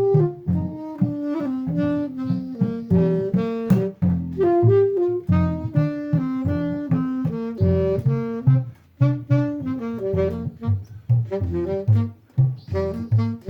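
Instrumental passage of a song: a quick, pitched melody of short notes over a bass line, with no singing.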